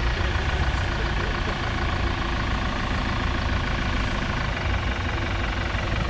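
Off-road 4x4's engine idling with a steady, low engine note.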